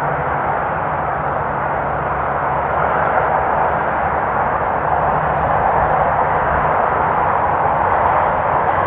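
Distant freeway traffic: a steady wash of tyre and engine noise from many passing vehicles, swelling gently about halfway through, with a faint low engine hum underneath.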